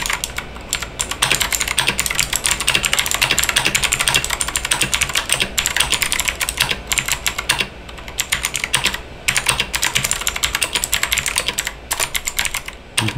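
Fast typing on an Aula F3261 60% mechanical keyboard with red switches: a dense, continuous run of keystroke clacks, broken by a few brief pauses.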